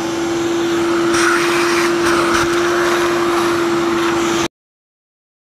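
Shop vacuum running steadily, its motor holding one even hum under a loud rush of air, as the nozzle sucks up broken glass around the empty rear-window frame. It cuts off abruptly near the end.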